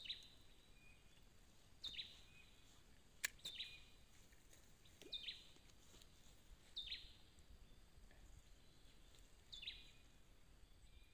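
A bird repeating a short call that drops sharply in pitch, six times at intervals of about two seconds, over quiet outdoor background. A single sharp click comes about three seconds in.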